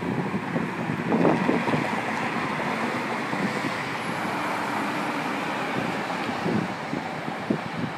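Steady outdoor city street noise of road traffic, with wind on the phone's microphone and a few soft bumps about a second in and again near the end.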